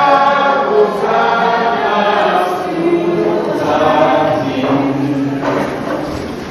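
A church congregation singing together, many voices on sustained notes.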